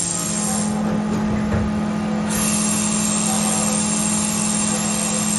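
Haas VF-2 CNC vertical machining center milling under flood coolant: a steady spindle hum under a hiss of coolant spray and cutting. The hiss thins out about a second in and comes back a second or so later.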